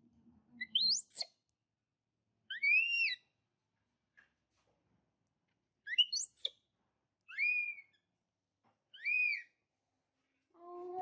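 Infant macaque giving five high-pitched calls, each about half a second long, some sweeping sharply upward and others rising and falling in an arch. They are the baby's calls for its mother, wanting to nurse.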